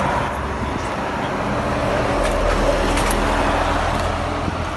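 Road traffic on a highway: a steady wash of car engine and tyre noise that swells slightly as a vehicle passes about halfway through.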